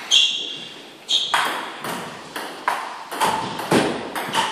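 Table tennis rally: a plastic ball knocking off the paddles and bouncing on the table, about ten sharp clicks in quick succession, each trailing off in the room's echo.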